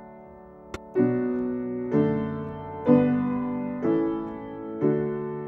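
Background music: keyboard chords struck about once a second, each left to ring and fade before the next.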